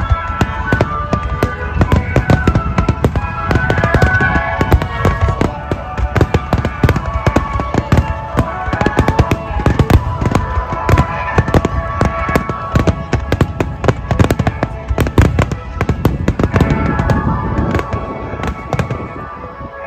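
Rapid barrage of aerial firework shells bursting: many sharp bangs and crackles in quick succession, with music playing.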